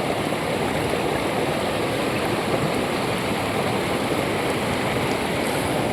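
Steady rushing of a flowing river or stream.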